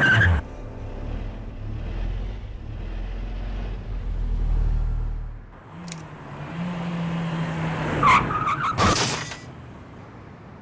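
A car engine runs and revs, then the tyres screech briefly about eight seconds in, the loudest moment. It is staged as one car bumping into another in a car park.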